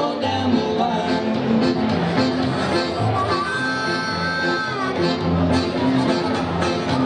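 Live rockabilly band playing an instrumental passage: accordion, electric archtop guitars, upright double bass and drums, with a high note held around the middle.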